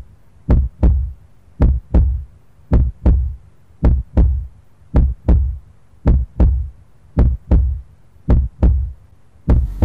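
Heartbeat sound effect: slow, deep double thumps, a lub-dub about once a second, repeating evenly with nothing else beneath them.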